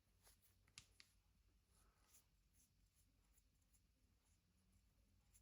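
Near silence: faint room tone with a few soft clicks about a second in.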